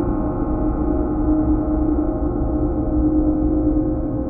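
Sound-art drone: many steady ringing tones stacked over a constant low rumble. They are held without any new strikes.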